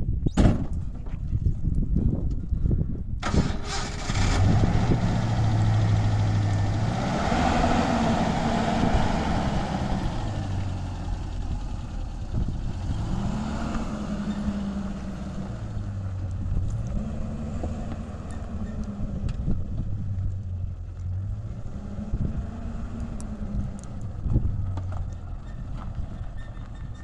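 A pickup truck's engine starting after a few knocks, then running and revving up and down repeatedly as the truck pulls away and drives off.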